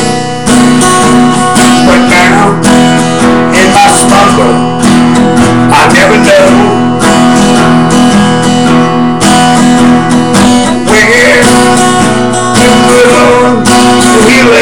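Acoustic guitar strummed steadily, its chords ringing between strokes: an instrumental passage between sung lines of a song.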